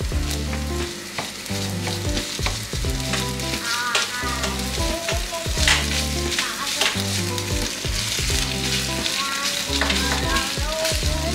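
Diced chicken, onion and tomato paste sizzling in a nonstick frying pan while a wooden spatula stirs and scrapes through them. Background music with a repeating low bassline plays underneath.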